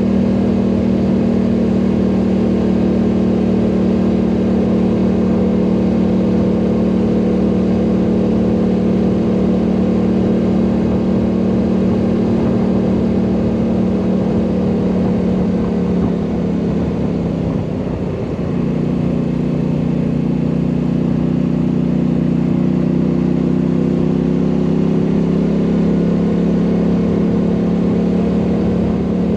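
ATV engine running steadily under way. Its pitch dips and the engine eases off briefly about two-thirds of the way through, then it picks up and steadies again.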